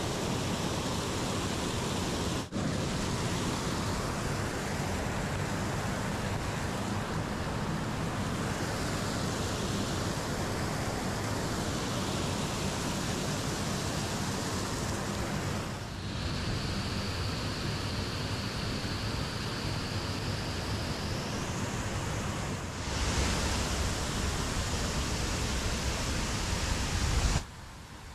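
Water pouring over a concrete weir: a steady rushing noise that breaks off abruptly a few times. A thin high whine joins for about five seconds a little past the middle, and the rushing cuts off suddenly near the end.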